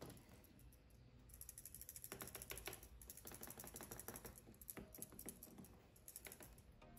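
Near silence with faint, rapid clicks and rattles: small plastic and metal parts of a T12 soldering iron handle being handled.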